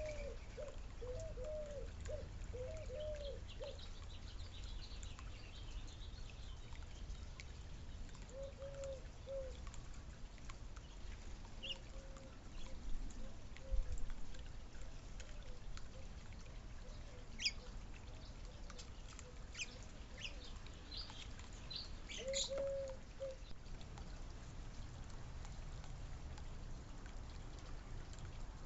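Backyard birds calling: a quick run of short, low cooing notes at the start that recurs more faintly later on, and scattered high, sharp chirps in the second half.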